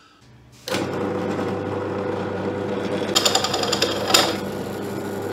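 Ryobi Exactline benchtop drill press starting up and running with a steady hum. About three seconds in, the bit bites into the aluminium bar and a harsh high-pitched rasping cuts over the motor for about a second, then eases back to the plain running hum.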